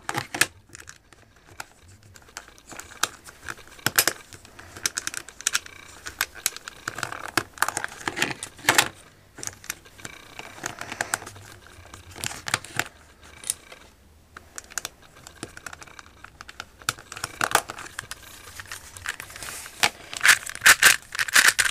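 Small hard plastic cube pieces clicking and clattering as center caps are pressed onto a DIY speed cube's centers and the cube is handled. The clicks come irregularly and get louder near the end.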